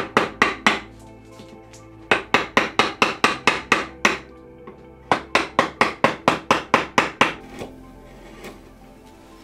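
Runs of sharp, evenly spaced taps, about five a second, in three bursts with short pauses between, stopping about three-quarters of the way through, over quiet background music.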